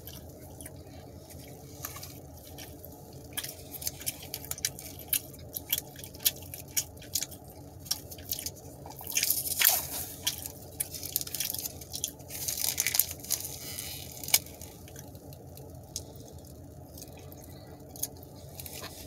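Close-up wet chewing and smacking of mozzarella string cheese, eaten with the mouth open: many short sharp clicks and squelches, with two longer scratchy stretches about nine and twelve seconds in. A steady low hum runs underneath.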